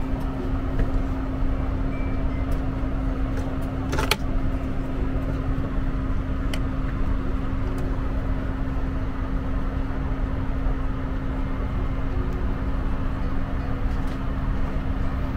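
Steady cabin hum of a Bombardier CS300 airliner standing at the gate, its air-conditioning and ventilation running, with a low steady drone under it. A single sharp click about four seconds in.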